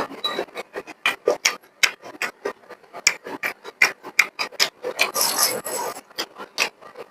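Close-miked mouth sounds of a person eating beef and rice: wet chewing and lip-smacking clicks, irregular, several a second, with a longer, noisier stretch about five seconds in.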